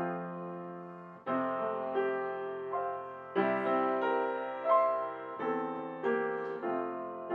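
Background piano music: chords struck every second or so, each left to ring and fade.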